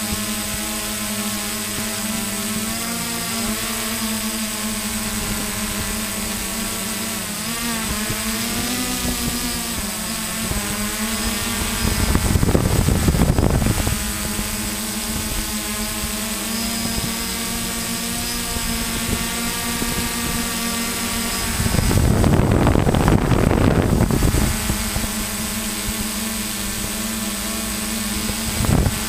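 Multirotor drone's electric motors and propellers giving a steady hum with many overtones, its pitch wavering twice as the craft manoeuvres. Two louder rushing noises of about two seconds each cut in about twelve and twenty-two seconds in.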